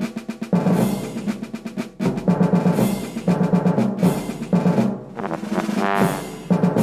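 Rapid drum-roll-like percussion: short hits repeat many times a second in stretches broken by brief gaps. Near the end comes a sweep that rises and falls in pitch.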